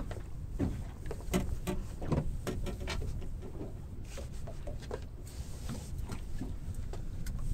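Scattered knocks and clicks of gear being handled on the deck of a small fishing boat, over a steady low rumble, with a brief hiss about five seconds in.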